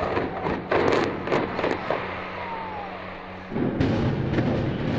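Demolition of a concrete high-rise: a run of sharp, irregular cracks and bangs as the tower comes down, dying away after about two seconds. About three and a half seconds in, a sudden steady rush of outdoor noise begins.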